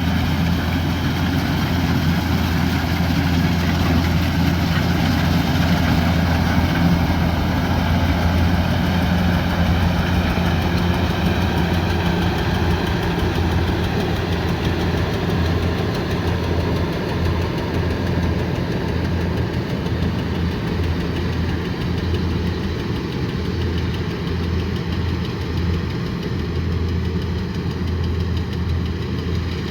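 Kubota rice combine harvester's diesel engine running steadily with the machine's mechanical noise, a little quieter in the second half.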